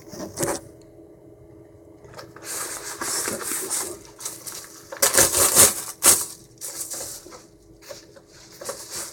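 A mailed package being opened by hand: packaging tearing and rustling in several noisy bursts, with a few sharp clicks.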